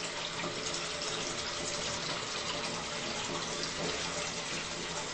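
Bathroom tap running steadily into the sink.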